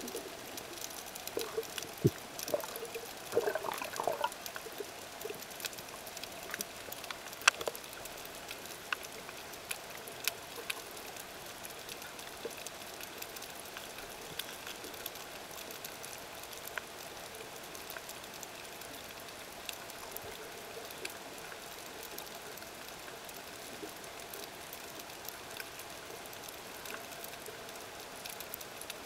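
Underwater ambience picked up by a camera below the surface: a steady hiss full of scattered sharp clicks and crackles, with a short spell of louder bubbling about two to four seconds in.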